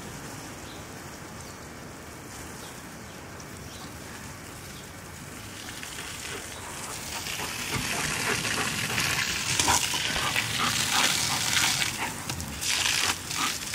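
A jet of water spraying and spattering onto grass and leaves, a steady spray noise that grows louder and more crackly about halfway through.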